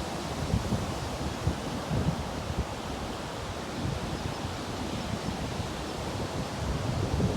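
Ocean surf washing onto a sandy beach, with wind buffeting the microphone in uneven low gusts that grow stronger near the end.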